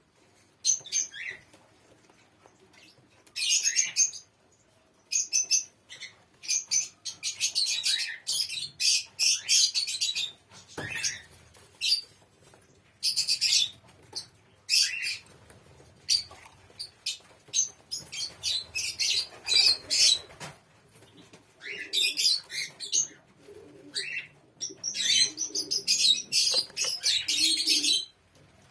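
Doves chirping in rapid high bursts that come and go every second or two, with wing flapping.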